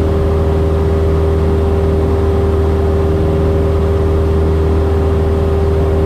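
Cessna 172S's four-cylinder Lycoming engine and propeller droning steadily at a constant power setting, heard from inside the cabin.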